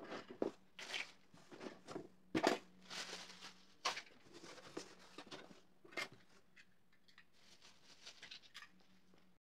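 Thin plastic bag rustling and crinkling in irregular bursts as small ornaments are handled and put into it, loudest about two and a half seconds in and thinning out over the last few seconds.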